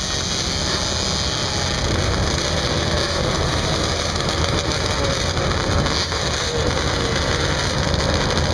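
Sport quad (ATV) engines running, heard under a steady, rough, crackling noise, with a wavering engine note that rises a little about six seconds in.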